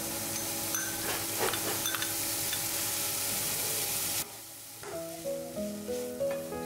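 Diced onion, carrot and bell pepper sizzling in oil in a non-stick frying pan. The sizzle stops abruptly about four seconds in, and a few light clicks of a metal spatula stirring follow. Background music plays throughout.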